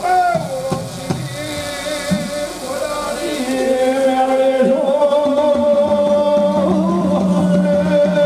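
Devotional dhun: a man's voice singing or chanting into a microphone over music. About three and a half seconds in, the music grows louder and settles into long, steady held notes.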